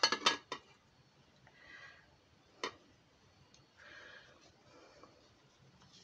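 A ceramic plate clicking against a glass baking dish as it is fitted over the dish: a quick cluster of sharp clicks at the start and a single click a little over two seconds later, with faint soft rustling in between.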